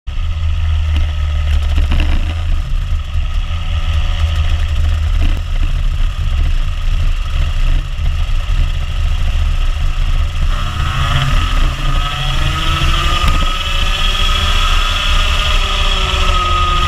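Rotax Max Junior kart's 125 cc two-stroke engine running on track, heard onboard under a heavy low rumble; about ten seconds in, its pitch climbs steadily for several seconds as the kart accelerates, then holds high.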